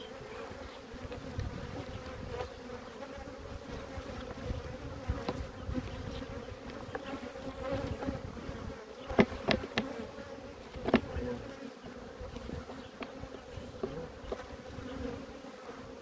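Honeybee colony humming steadily from an opened hive. A few sharp clicks about nine to eleven seconds in, as the wooden frames are handled.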